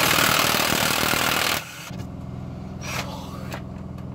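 Impact wrench hammering in a fast rattle for about a second and a half, loosening nuts on a diesel engine's rocker assembly, then stopping suddenly. A steady low hum follows.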